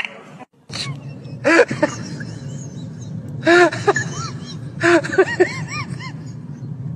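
Small Chihuahua-type dog crying out in short, high, wavering yelps and whines, a few at a time, about a second and a half, three and a half and five seconds in, as it is held and handled. Its cries sound distressed.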